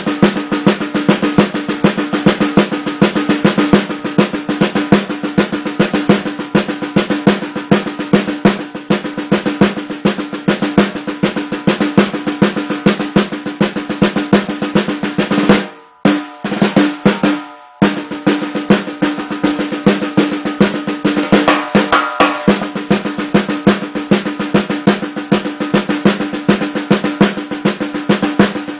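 Snare drum struck with wooden drumsticks in fast, dense strokes and rolls, the head ringing steadily under the hits. The playing breaks off twice, very briefly, a little past halfway.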